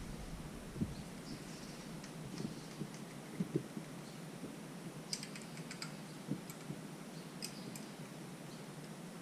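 Faint, scattered light clicks and taps of small metal tools and engine parts being handled, with a quick run of four or five clicks about five seconds in.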